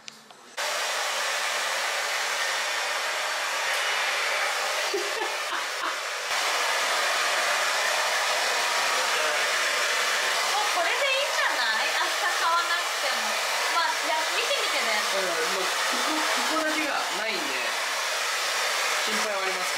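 Handheld hair dryer blowing steadily, switching on suddenly about half a second in, with a brief change in level around six seconds in.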